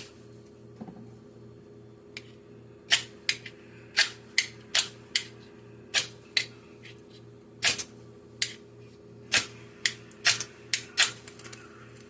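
A folding knife's blade scraped repeatedly down a ferro rod fire starter to throw sparks: a run of short, sharp rasping strikes, irregular at about two a second, starting about three seconds in.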